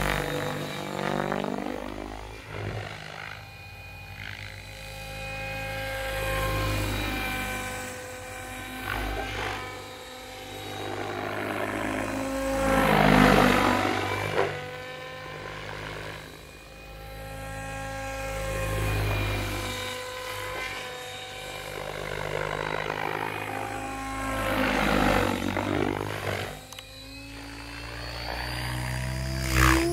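Radio-controlled helicopter in flight, its rotors whining and buzzing with a pitch that rises and falls as it manoeuvres. The sound swells in close fly-bys, loudest about 13 seconds in and again about 25 seconds in.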